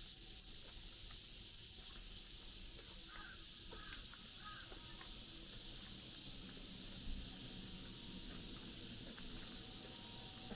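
Faint, steady chorus of insects chirping, with a single soft thump about seven seconds in.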